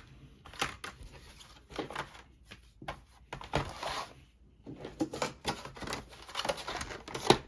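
Board game components being handled and set down: irregular light taps, clicks and rustles, with a sharper knock near the end.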